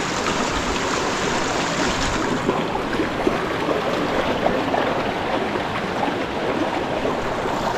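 Stream water running steadily: a dense, even rushing noise.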